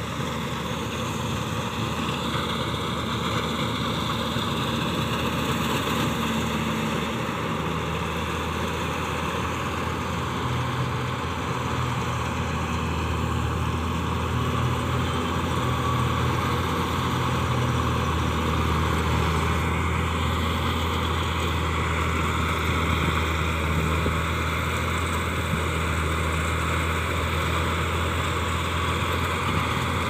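Kuldeep 932 self-propelled combine harvester running steadily while cutting and threshing wheat: a continuous engine and machinery drone that grows a little louder over the first few seconds.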